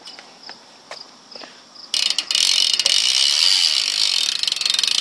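BMX rear hub (Haro 50-to-1 back hub) ratcheting loudly as the back wheel freewheels: its pawls click so fast that they blur into a steady buzz, which starts about two seconds in. Before that, crickets chirp faintly.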